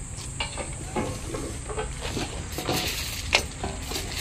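Hand tools of a railway track gang working the stone ballast and rails: scattered metal clinks and gritty scraping of stones, with one sharp metal strike a little after three seconds in.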